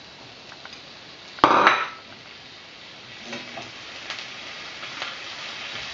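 Sliced mushrooms tipped from a bowl into a hot stainless steel frying pan of curry paste, with a sharp knock and a short loud rush of sizzle about a second and a half in. Then a spatula stirs the pan with a few light taps over a low steady sizzle.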